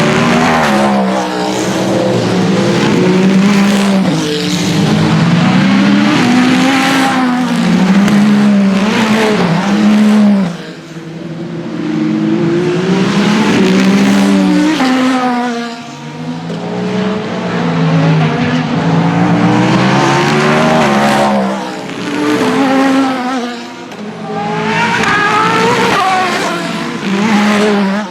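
WEC Hypercar prototype race cars passing one after another at speed, their engines rising and falling in pitch through gear changes as each comes by. The sound dips briefly between passes, about four times.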